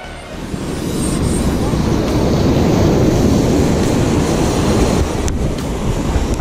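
Surf washing up the beach with wind buffeting the microphone, a loud steady rush that swells in about half a second in. A single sharp click about five seconds in.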